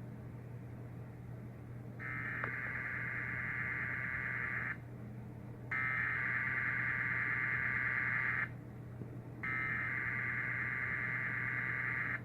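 Emergency Alert System header tones from a TV broadcast: three bursts of screeching digital data tones, each a little under three seconds, with about a second's pause between them.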